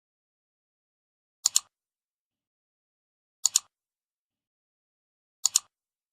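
Three pairs of sharp, high clicks, two quick clicks each time, evenly spaced about two seconds apart, with dead silence between them.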